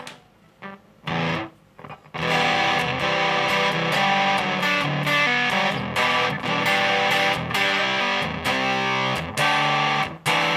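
Electric guitar played through a newly built 7 Min Fuzz pedal, a Bazz Fuss-type one-transistor fuzz, into an amp: fuzz-distorted guitar, a short stab about a second in, then steady playing from about two seconds in. It is the pedal's first test, and it works.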